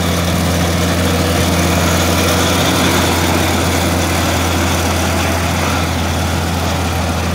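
Kubota combine harvester's diesel engine running steadily while the machine cuts and threshes rice, a constant low drone with the rattle and rush of the threshing works over it.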